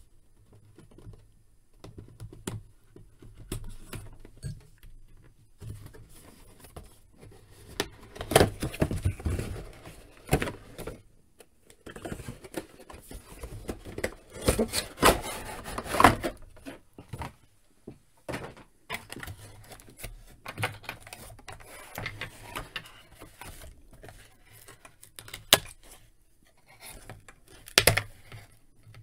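Unboxing a large action figure by hand: a cardboard box and its plastic packaging rustling, crinkling and clicking in irregular bursts as tape seals are peeled and the figure is worked out of its plastic tray. The handling is busiest about a third of the way in and again around the middle.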